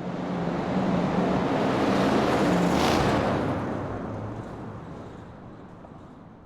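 Muscle car driving past: the engine swells as it approaches, is loudest about two to three seconds in, then drops in pitch and fades as it moves away.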